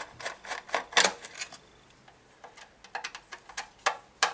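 Screwdriver turning screws out of the sheet-metal casing of a Cessna aircraft combustion heater: a run of sharp metallic clicks and ticks at irregular spacing, the loudest about a second in and another near the end.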